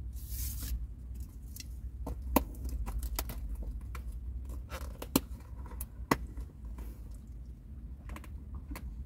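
A short tearing rustle as a drinking straw's wrapper comes off, then a plastic straw jabbed and pushed through the sealed plastic lid of a juice cup, giving a run of sharp clicks and scrapes with the loudest a little after two seconds, then again at about five and six seconds.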